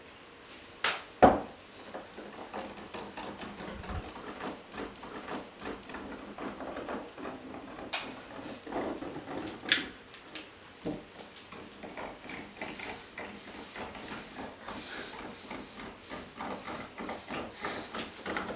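Bodies and feet of performers knocking and scuffing on a narrow staircase: two sharp knocks about a second in, two more near the middle, with steady rustling and shuffling between.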